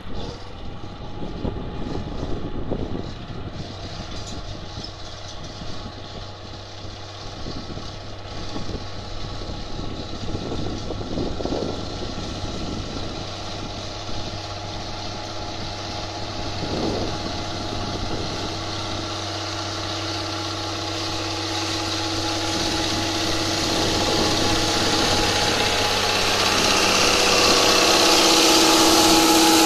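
John Deere 7720 tractor's six-cylinder diesel engine running steadily as it pulls a precision planter with a front seedbed cultivator over tilled ground, growing louder as it comes close. Near the end a rising hiss of the implement's tines and rollers working the dry soil joins in.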